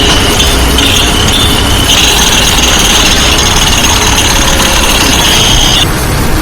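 Heavy road-construction machinery with its diesel engine running steadily, over a continuous high-pitched squeal that cuts off just before the end.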